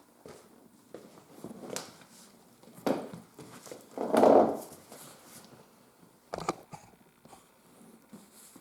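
Leather and hand tools being handled on a workbench during leatherworking: scattered light clicks and rustles, a sharp knock about three seconds in and another near the end, and a louder half-second scrape about four seconds in.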